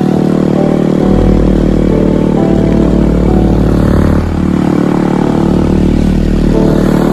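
Motorcycle ride with background music over it: steady held musical notes, and a deep low rumble from about a second in.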